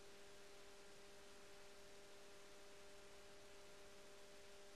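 Near silence: a faint steady hum with a low hiss.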